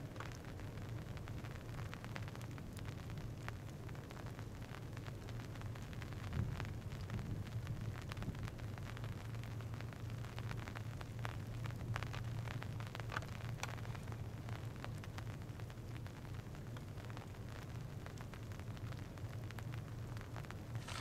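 Steady low rumble with frequent short crackles and clicks throughout: outdoor noise on the microphone by the water.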